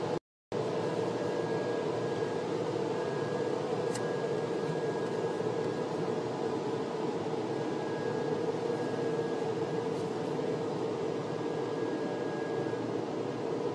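Steady mechanical whirring rush, like a large fan or blower running, with a faint on-and-off tone above it and a brief dropout just after the start.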